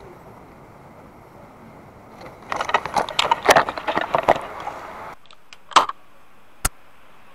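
Irregular clattering and knocking of an airsoft rifle and kit being handled close to the microphone, then a few sharp clicks and a single sharp snap of an airsoft sniper rifle shot.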